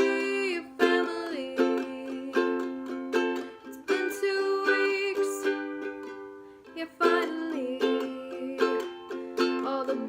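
Song accompaniment: a string instrument strummed in a steady rhythm, with a quieter stretch a little past the middle.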